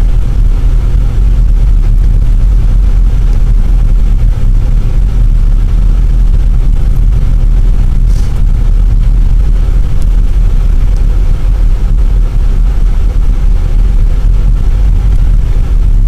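Steady low drone of a car driving on a snow-covered road, heard from inside the cabin: engine and tyre noise with no change in speed.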